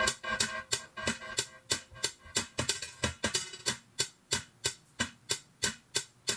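Background music in a stripped-down passage: a steady percussive beat of sharp hits, about three a second, with the other instruments mostly dropped out.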